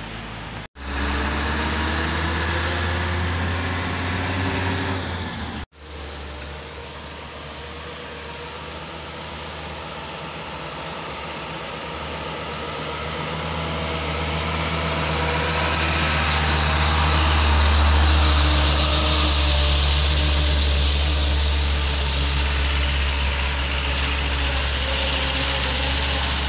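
Diesel truck engine running under way, a deep steady drone with a rising engine note in the first few seconds. The sound cuts off abruptly twice early on, then runs on steadily and grows louder toward the middle.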